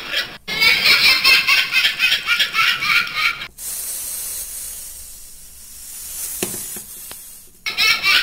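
A walking toy cat playing a recorded laughing sound from its built-in speaker. The laughter runs for about three and a half seconds, stops for about four seconds with only a quieter hiss, and starts again near the end.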